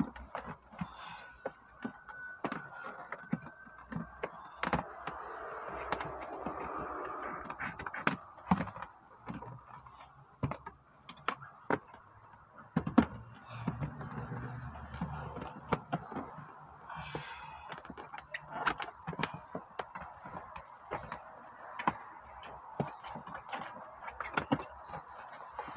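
Clear plastic sheet rustling and crinkling as it is handled and pressed down onto car floor carpet, with many scattered sharp clicks and taps.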